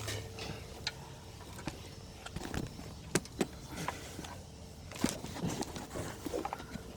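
Scattered light clicks and rattles of an engine wiring harness and its connectors being moved by hand, over a faint steady hum.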